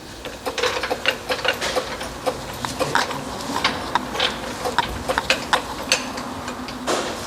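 Irregular metallic clicks and clatter of tools and parts being worked at an SUV's rear suspension during a shock replacement.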